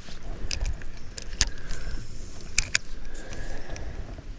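Metal fishing gear being handled, clinking and rattling, with a few sharp clicks spread through the moment.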